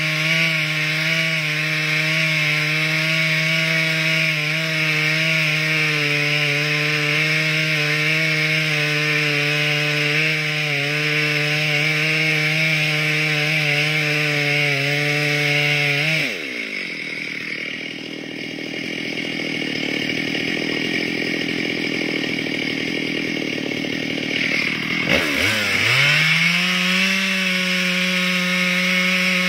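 Petrol chainsaw running at high revs, cutting through a log. About sixteen seconds in the engine drops to idle for several seconds, then is throttled back up to full revs.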